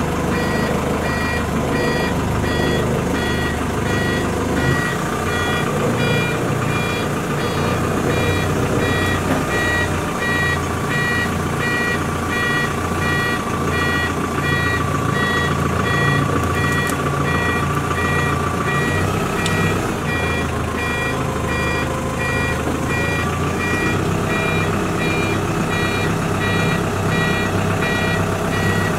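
A wheel loader's backup alarm beeping steadily, about two beeps a second, over its diesel engine running.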